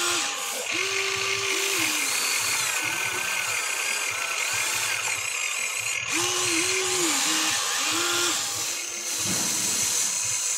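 Huina 1594 RC excavator's electric motors and gears whining as the boom, arm and bucket move. The pitch rises and falls in short stretches as functions start and stop, with a brief break about six seconds in.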